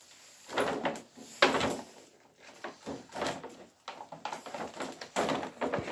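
Clear plastic packaging rustling and crinkling as it is handled, in a few irregular bursts.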